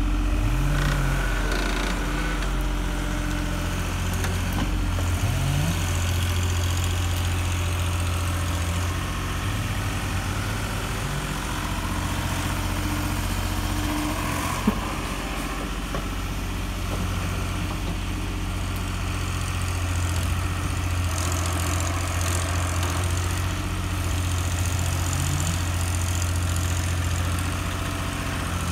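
Schaeff wheeled excavator's diesel engine running steadily under hydraulic load while digging and loading soil, its pitch rising briefly a few times as the boom and bucket work. A single sharp click about halfway through.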